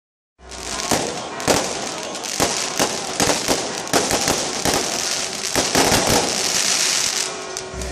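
A rapid, dense string of firecracker bangs and crackling. It starts about half a second in and thins out near the end.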